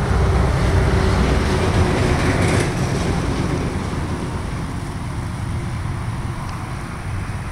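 Rumble of passing road traffic: a vehicle's noise swells over the first couple of seconds and then slowly fades.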